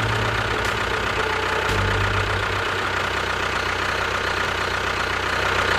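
An engine idling steadily with a rapid low chugging.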